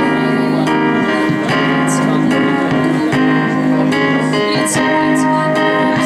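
A song with a keyboard backing track played through a PA speaker, a girl singing along into a handheld microphone.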